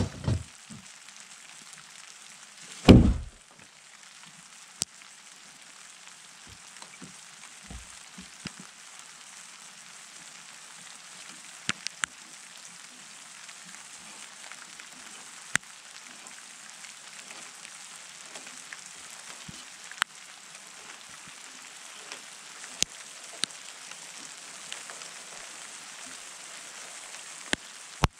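An axe striking a peeled log in sharp, isolated knocks every few seconds, with a heavy thud about three seconds in, over a steady hiss.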